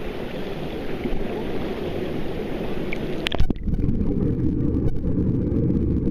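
Pool water splashing at the surface, then about halfway through the microphone goes underwater with a click and the sound turns to a muffled low rumble of bubbling water as air is breathed out.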